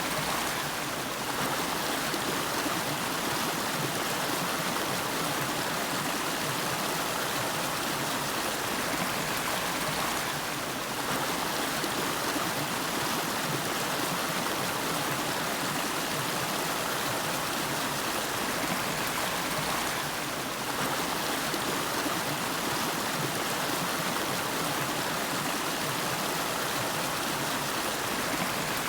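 Nariki River flowing: a steady, even rush of running water.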